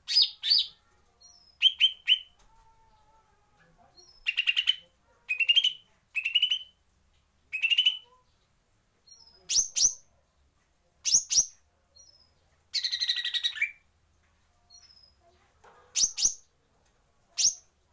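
Female lesser green leafbird (cucak ijo mini) giving a chatty string of short calls, each a quick rattle of notes lasting about half a second, with one longer rattle about two-thirds of the way through.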